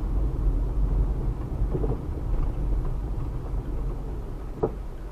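A car driving, heard from inside the cabin: a steady low rumble of engine and tyre noise, with a single short click near the end.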